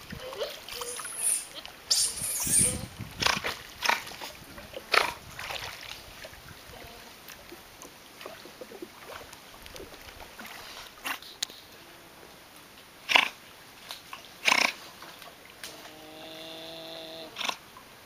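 Giant otters calling: a series of short, sharp snort-like calls, then one longer pitched call near the end.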